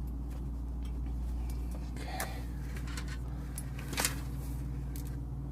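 Steady low hum of running walk-in freezer refrigeration equipment, with a few light clicks and taps of handling, the clearest about two and four seconds in.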